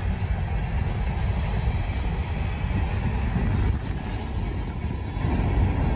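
Freight cars of a slow CSX Herzog ballast train rolling past: a steady low rumble of steel wheels on the rails as the train slows, a little louder near the end.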